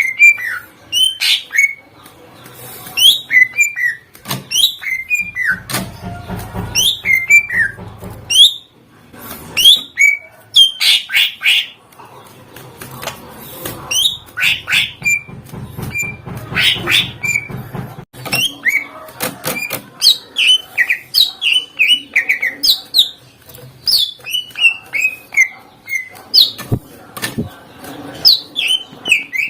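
Cucak ijo (green leafbird) singing loudly and continuously: a fast, varied run of sharp high chirps and quick falling whistled notes, full of imitations of other birds' calls.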